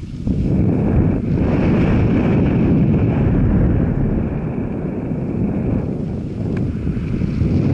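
Wind buffeting the microphone: a loud, steady low rumble with a hiss above it.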